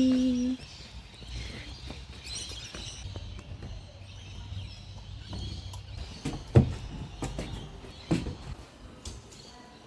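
A child's short sing-song "di-di-di" at the start, then low background rumble with faint high chirps. Two sharp knocks about six and a half and eight seconds in are the loudest sounds.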